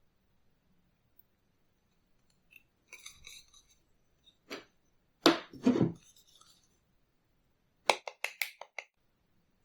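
Hard objects clinking and clicking as they are handled: a few scattered knocks, a louder pair in the middle, then a quick run of about six sharp clicks near the end.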